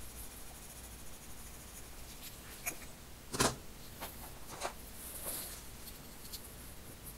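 A few light clicks and knocks of colored pencils being put down and picked up on the desk, the loudest about three and a half seconds in.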